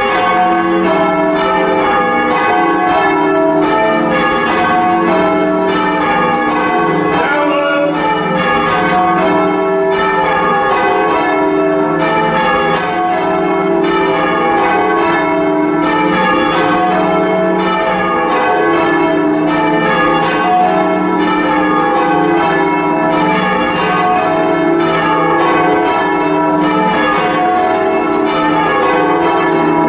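Church bells of a ring of four, rung by hand in sequence: the strikes follow one another continuously and their long ring overlaps into a steady, loud wash of bell tones.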